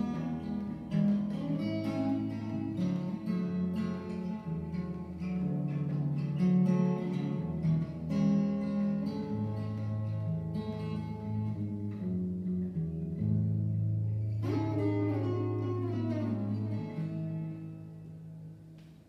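Solo acoustic guitar picked in a finger-style melody over bass notes, with a louder strummed chord about two-thirds of the way through. The playing ends on a chord that rings and fades away near the end.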